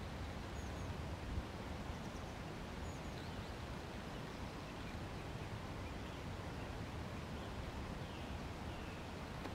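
Open-air ambience: a steady background rush with a few faint, short, high bird chirps scattered through it.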